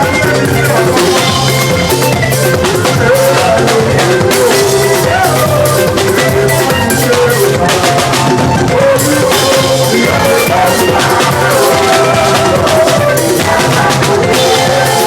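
Loud live church music driven by a drum kit, with a steady, evenly repeating beat and pitched melodic parts over it.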